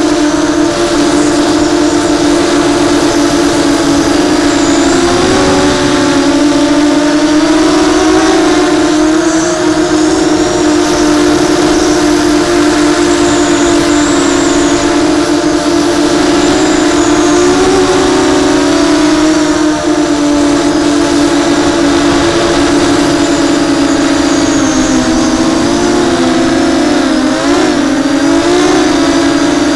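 Babybeast v2 brushless motors spinning 6-inch propellers on a small FPV racing quadcopter, recorded close by its onboard camera: a loud, steady buzzing whine whose pitch wavers as the throttle changes, dipping and wobbling a few seconds before the end.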